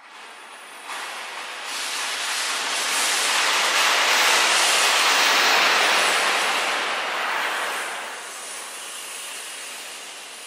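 Wind rushing past a motorcycle rider's helmet, deliberately distorted with effects into a hissing roar. It builds in steps over the first couple of seconds as the bike gathers speed, stays loudest through the middle, and eases off after about seven seconds.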